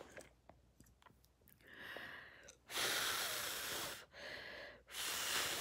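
A woman breathing heavily through pursed lips, starting about a second and a half in: four breaths, two short and two longer ones blown out, as she copes with the pain of a freshly scalded leg.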